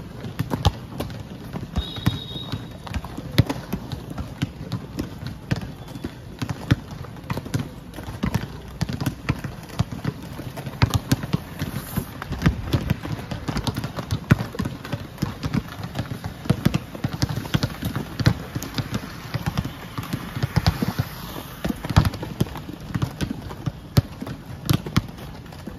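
Basketballs bouncing irregularly on a stone-tiled court, several sharp knocks a second, over the low rumble of inline skate wheels rolling across the tiles.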